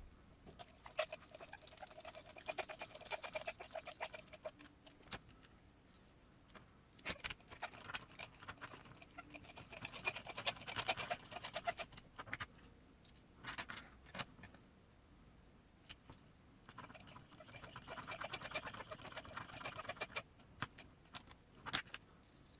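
Small M3 button head screws being driven into an RC crawler chassis, heard as three bursts of rapid clicking and rattling a few seconds each, with single clicks between them.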